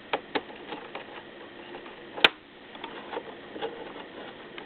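Small screwdriver tightening screws in a laptop hinge, with light scattered clicks and ticks of metal and plastic and one sharper click about two seconds in.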